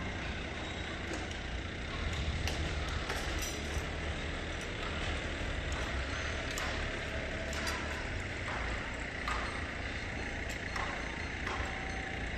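Steady low rumble of a vehicle engine running nearby, with a few light knocks scattered through.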